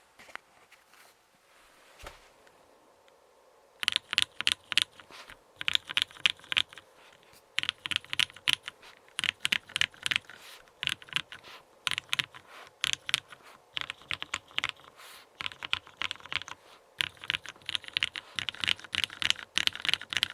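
Keycult No. 2/65 custom mechanical keyboard with lubed Hyperglide Cherry MX Black linear switches on an aluminium plate, typed on fast in rapid bursts of key clacks starting about four seconds in. Before that there are only a few faint clicks.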